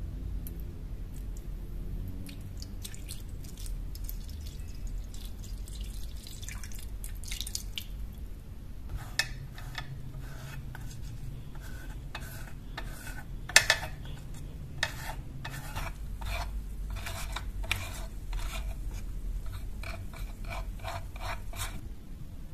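Liquid poured into a glass baking dish over a knife blade, then a bristle brush scrubbing the blade in the liquid with quick wet sloshing strokes. One sharp knock stands out about halfway through.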